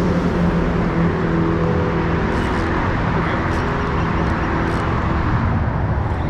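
Motor vehicle engine drone over a steady rushing noise, the humming fading out about four seconds in.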